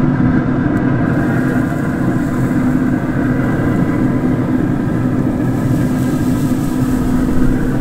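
Traeger wood pellet grill running: its fan gives a steady, even hum.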